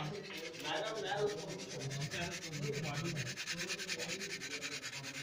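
Bare end of a snooker cue being rubbed on a disc of sandpaper: a fast, even rasping rhythm of sanding strokes. The sanding is cleaning old residue off the cue's end to prepare it for a new tip.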